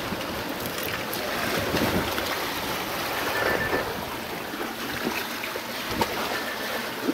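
Surf washing against sandstone rocks, a steady rushing noise with wind buffeting the microphone, and a sharp knock about six seconds in.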